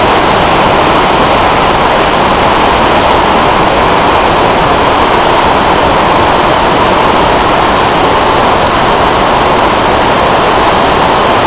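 Whitewater rapids rushing, a loud, steady, unbroken rush of water.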